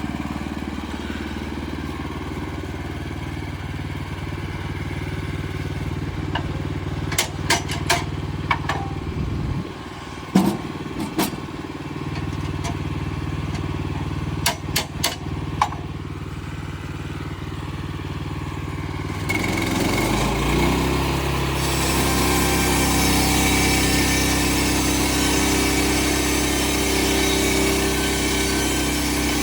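Portable bandsaw sawmill engine idling steadily, with a few sharp clanks around the middle. About two-thirds of the way in the engine speeds up and the band blade starts cutting the log, a steady sawing noise over the engine.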